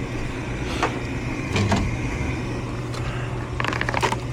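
Goodman gas furnace going through an ignition try: the draft inducer motor hums steadily, with a faint whine in the first half and a few sharp clicks about a second in and again near the end. The furnace is failing to light, with no rush of gas to be heard.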